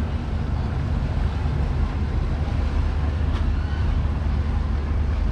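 Diesel engines of a large passenger ship running with a steady low drone as the ship manoeuvres slowly at close range.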